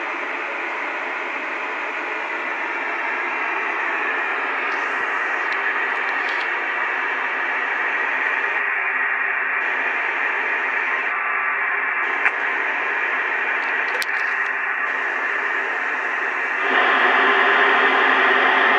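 Steady hiss of an FM amateur-radio receiver tuned to 145.825 MHz, the ISS APRS downlink, with no tones or voice on it. A few faint clicks, and the hiss gets louder about 17 seconds in.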